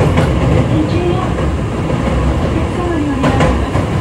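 Interior running sound of a Hankyu 3300 series resistor-controlled electric train travelling through a subway tunnel: a steady rumble of wheels and traction motors with wavering motor tones and brief clicks from rail joints.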